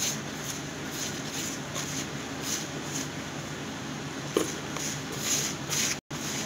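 A hand mixing and rubbing crumbly gram flour and rice flour in a bowl, making soft swishing strokes about twice a second as water is worked in toward a stiff dough, over a steady low hum.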